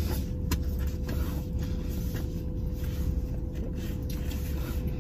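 Steady low rumble of a car idling, heard inside the cabin, with a faint steady whine and a single light click about half a second in.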